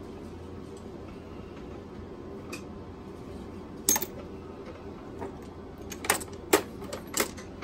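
Loose steel sockets clinking against each other as a hand rummages through a toolbox drawer full of them: a single sharp clink about four seconds in, then several more in quick succession near the end.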